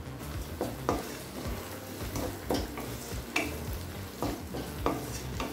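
Onions and spices sizzling in oil in an aluminium kadai while a wooden spatula stirs them, with repeated short scraping strokes against the pan over a steady frying hiss.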